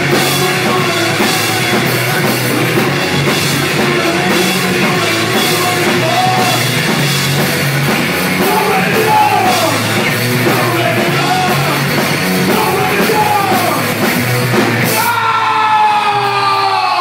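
Live rock band playing loud, with electric guitar, bass guitar, drum kit and a shouted lead vocal. About two seconds before the end the song stops and crowd cheering takes over.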